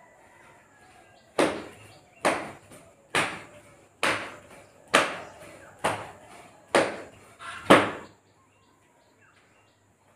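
Eight sharp, loud strokes about a second apart, each with a short fading tail, made in time with a man's repeated standing yoga movement.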